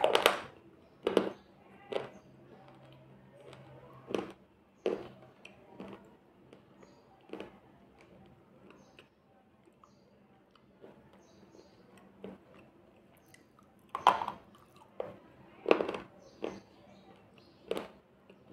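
Slate pencil pieces bitten and crunched between the teeth, picked up close by a headset microphone. Sharp crunches come about once a second at first, thin out in the middle, and a few louder bites come near the end.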